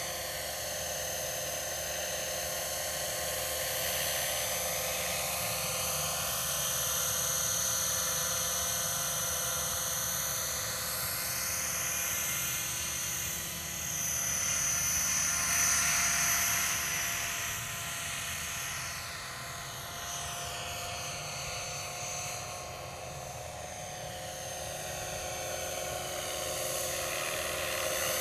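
Scale MD 500D radio-controlled helicopter in flight, its motor and rotors making a steady high whine. The whine sweeps up and down in tone as it moves about, getting louder as it passes close about halfway through and then easing off as it climbs away.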